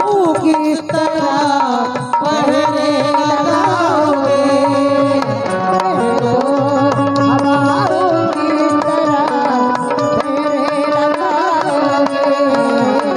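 Live Indian folk ghazal: a woman singing a long, wavering melodic line over harmonium and hand-drum accompaniment, with steady drum strokes throughout.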